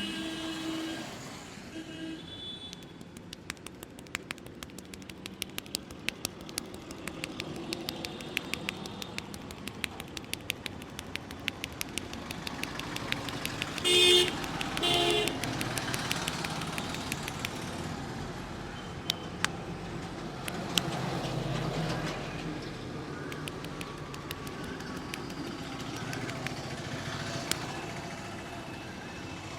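Street traffic noise with a vehicle horn sounding two short blasts about halfway through, over an irregular run of many quick, sharp clicks.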